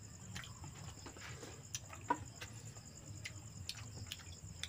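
Crickets chirping steadily in a high, fast pulse, with faint eating sounds over it: chewing and scattered small clicks, one sharper about two seconds in.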